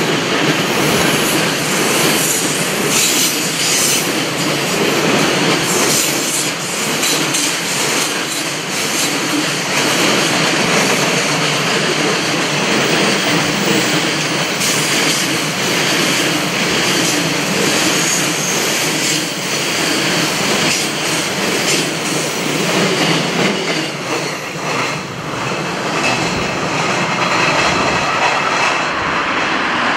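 Container flatcars of a long freight train rolling past: a steady loud rumble of steel wheels on rail, with repeated clicking as the wheelsets cross the rail joints.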